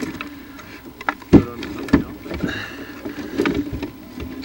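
Knocks and clunks of hands and tools working on the nest camera's mount, with rustling of nest sticks, picked up close by the camera's own microphone; the loudest knock comes about a second and a half in.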